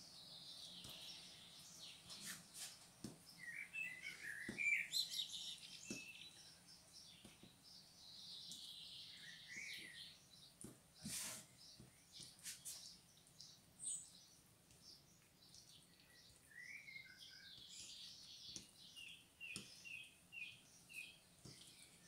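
Faint small birds chirping in short bursts, ending in a quick run of chirps. A few soft knocks are heard now and then.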